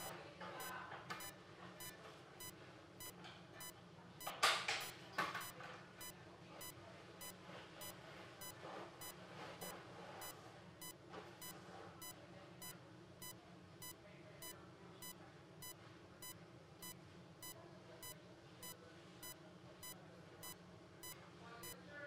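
Bedside patient monitor beeping steadily with each heartbeat, about two beeps a second. About four and five seconds in there are two brief, louder bursts of handling noise.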